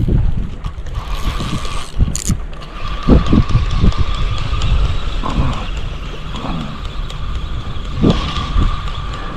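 Wind buffeting the microphone over waves at the shoreline, with a steady thin whine from a spinning fishing reel being wound in after a cast, starting about a second in. A sharp click comes about two seconds in.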